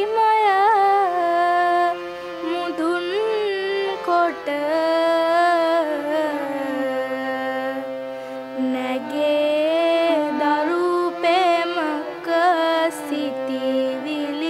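A solo voice singing a slow Sinhala devotional song in long, wavering, ornamented held notes over a steady sustained accompaniment.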